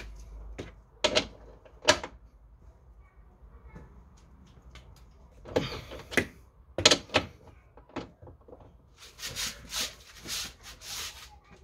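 Hand ratchet wrench clicking in short runs as bolts are turned, with a few sharp knocks of the tool; the densest ratcheting comes near the end.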